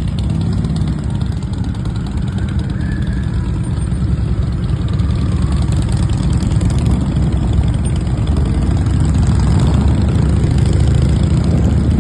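Harley-Davidson motorcycle engine idling and running steadily with a dense low-pitched pulse, growing a little louder in the second half.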